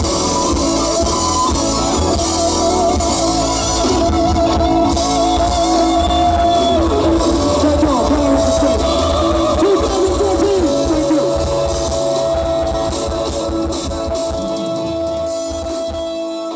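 Live band playing loud, with drum kit, electric guitar and keyboards. Near the end the low drums and bass drop away and the music fades down.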